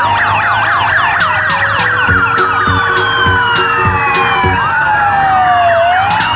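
Several emergency-vehicle sirens wailing at once, their pitches sliding up and down over each other, with music and a steady beat underneath.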